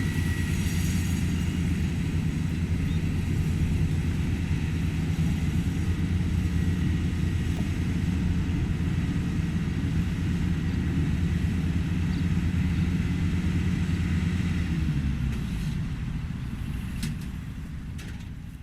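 Diesel engine of a Maxxi Bimo 102 rice combine harvester running steadily with a low hum. A little after three-quarters of the way through, the engine note drops and the sound fades away, with a couple of sharp clicks near the end.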